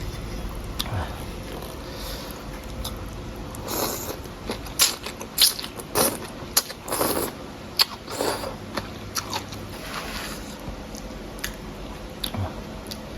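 A person eating noodle soup up close, with a run of short slurps and chewing sounds in the middle.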